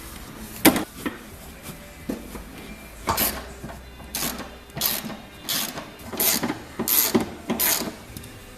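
Ratchet-like clicking strokes, about one every two-thirds of a second from about three seconds in, after a few single knocks: hardware being worked as the rear seat back is refitted.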